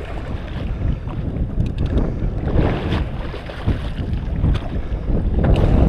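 Wind buffeting the microphone over choppy water, with water sloshing and a few scattered light clicks.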